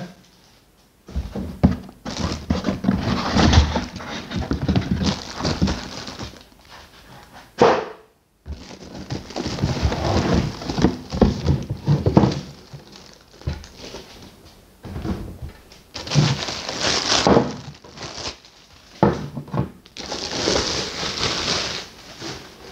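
Handling noise from unpacking a toaster: plastic wrap rustling and crinkling, and cardboard packaging scraping, with repeated thuds and knocks as the wrapped toaster is lifted out of its box and set down on a wooden table.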